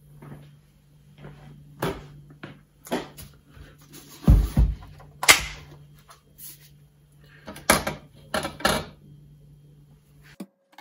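Separate knocks and clatters of plastic pipes being handled in a ceramic kitchen sink while scouring powder is shaken onto them, the loudest knocks about four and five seconds in. A low steady hum runs underneath and stops shortly before the end.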